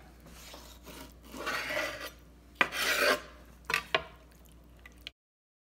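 Chef's knife pressed and sawed through a chicken's breastbone and cartilage: two rasping scraping passages, the second starting with a sharp crack, then a couple of sharp knocks.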